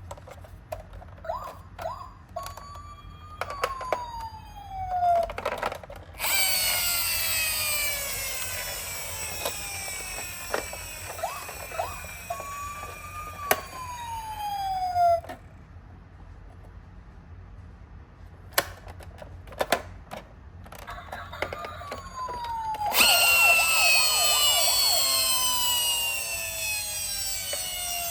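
Toy ambulance siren sounds: a tone that rises and then falls, heard three times, and two long loud stretches of a dense, harsh electronic siren sweep. Light clicks and rattles of small toy cars run through it.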